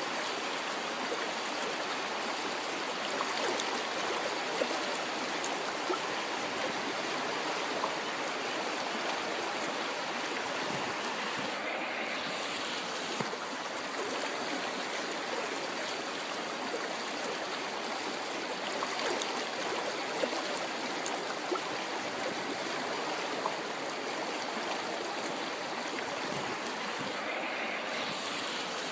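River water flowing: a steady rush of running water, with occasional brief louder splashes.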